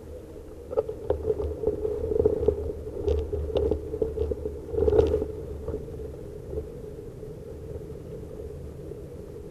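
Bicycle ride heard from a handlebar-mounted camera: a steady low rumble with irregular knocks and rattles as it rolls over the sidewalk paving. The knocks are thickest in the first five seconds, then it runs steadier.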